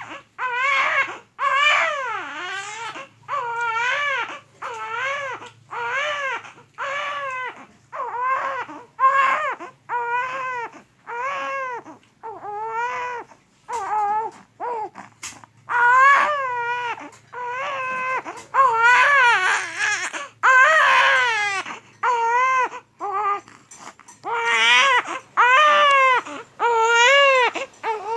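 Baby with flu and cough crying hard in a long run of short wails, about one a second, each rising and falling in pitch, with brief breaks between them.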